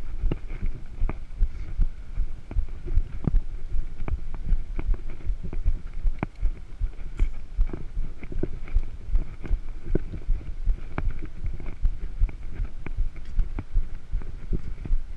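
Mountain bike rolling over a concrete road, heard through a handlebar-mounted camera: a constant low rumble with frequent irregular knocks and rattles, several a second, as the bike and mount shake over the rough surface.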